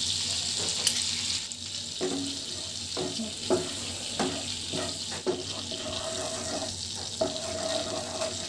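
Butter sizzling in a frying pan with chilli powder frying in it, a wooden spatula stirring and scraping the pan in a series of short strokes. A faint steady hum comes in about six seconds in.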